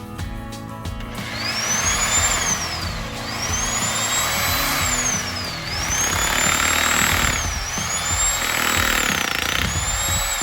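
Guitar music for about the first second, then a Harbor Freight hammer drill boring into concrete: steady hammering under a high motor whine that climbs and drops back about every two and a half seconds.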